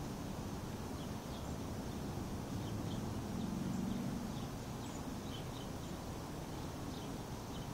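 Faint, short bird chirps scattered through a steady low background rumble.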